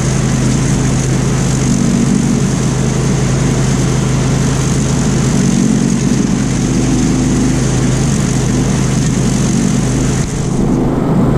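Old Grillo ride-on mower's engine running steadily under load while cutting long grass. A high steady whine over the engine stops shortly before the end.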